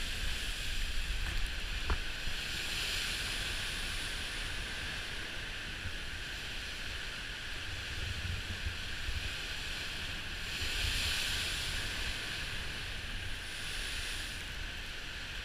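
Lake Superior storm surf washing onto the shore under a strong wind, with a low rumble of wind on the microphone. The rush of the surf swells twice, a few seconds in and again about ten seconds in.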